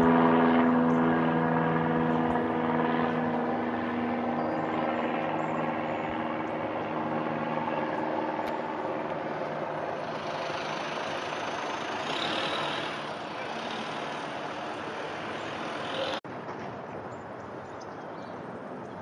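Propeller airplane departing overhead, its droning propeller tone fading away over the first several seconds. A hissing swell of aircraft noise rises and falls later, and the sound drops out for an instant about sixteen seconds in.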